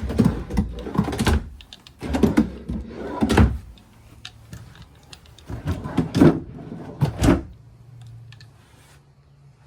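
Built-in drawers in a travel trailer being pulled open and pushed shut, giving three bursts of rattling knocks and thumps. Near the end only a faint steady low hum remains.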